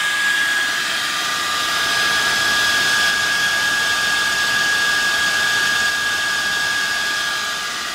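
Cooling fans of an Apolo 300-bar portable high-pressure air compressor running steadily with a whine, the pump stopped and the unit left plugged in so the fans bring its temperature down.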